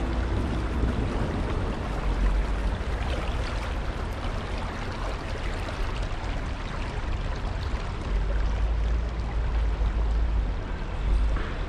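Water of the Cheonggyecheon stream flowing steadily, with a low rumble underneath.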